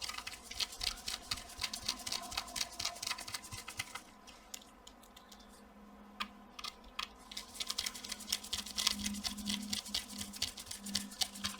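Rapid light clicking and rustling of small graphics-card parts being handled on the bench, in two stretches with a quieter pause of a few seconds in the middle.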